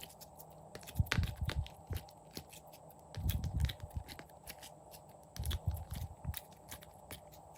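Clear slime being squished and kneaded by hand: a run of small sticky clicks and crackling pops, with three bursts of low squelching as it is pressed.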